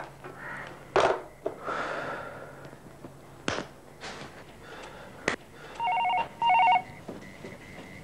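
A few sharp clicks, then a landline telephone rings with a double ring (two short rings close together) about six seconds in.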